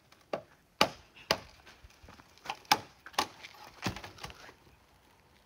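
Bamboo being chopped: about eight sharp, irregular chopping blows that stop about four and a half seconds in.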